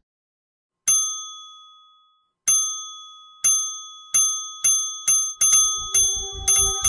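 A bright bell-like ding sound effect, struck about ten times: first alone with a long ring, then ever faster as each comment card pops up. Past the middle a low held note and a pulsing bass beat of background music come in underneath.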